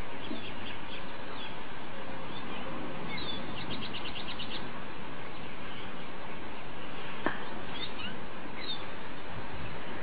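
Birds chirping over a steady background hiss, with a fast run of about ten quick notes about four seconds in and a few more chirps near the end. A single sharp click about seven seconds in.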